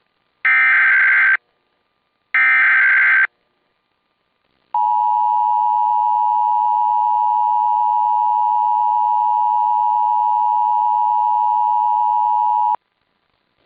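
Emergency Alert System broadcast: two roughly one-second bursts of the warbling SAME header data, then the steady two-tone EAS attention signal held for about eight seconds before it cuts off abruptly. Together they mark the start of an Amber Alert broadcast.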